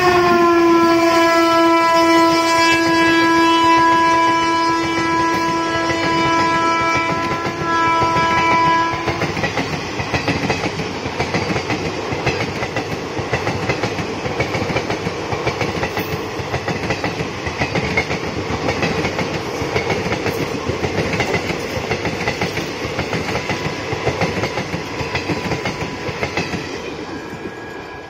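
WAP4 electric locomotive's horn sounding as it passes at speed, its pitch dropping as it goes by and then holding steady for about nine seconds. After that, the coaches of a passenger express roll past with a dense clatter, which fades near the end as the train moves away.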